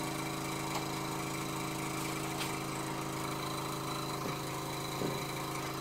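Small electric airbrush air pump running with a steady hum. It is not fastened down and vibrates enough to turn itself around in circles.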